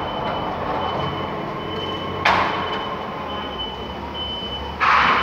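Loading-bay machinery noise with a forklift running. About two seconds in there is a sharp bang, and near the end a short, loud hiss.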